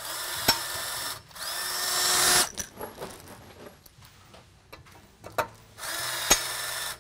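RK-401CR cordless rivet gun setting blind rivets: its motor runs for about a second and the rivet's mandrel snaps with a sharp crack partway through, then a second, rising motor run cuts off abruptly. After a few light handling clicks, the motor starts again near the end and a second mandrel snaps.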